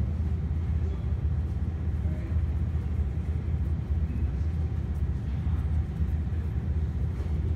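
Steady low rumble with no distinct knocks or clicks.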